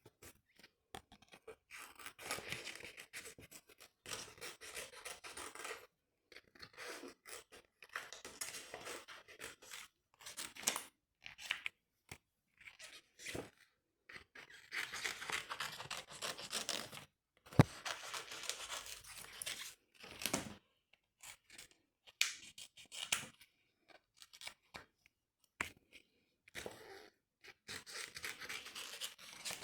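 Glossy sticker paper being worked by hand: a run of rasping, papery strokes, each a second or two long, with short pauses between, and one sharp click near the middle.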